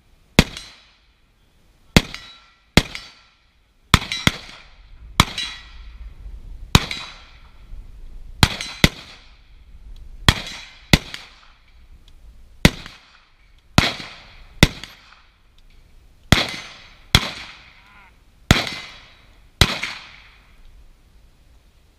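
Carbine gunfire from a rifle fired from the prone position: about eighteen sharp shots at an uneven pace, many in quick pairs, each followed by a short echoing tail.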